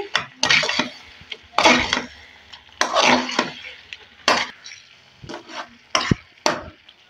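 A metal spoon stirring and scraping thick semolina halwa around a pan in irregular strokes, with dry fruits being mixed in.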